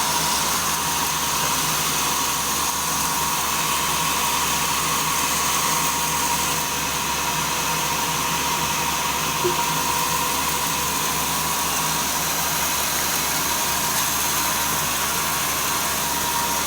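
Sawmill machinery running steadily, with a constant high whine over a low hum.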